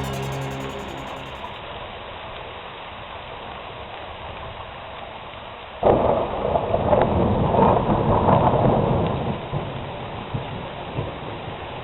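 Steady rain, with a sudden loud crack of thunder about six seconds in that rumbles for a few seconds and then slowly fades.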